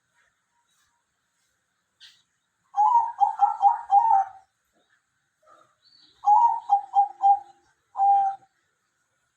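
Dove cooing: a quick run of about five pitched coos, a pause, a run of about four, then a single longer coo near the end.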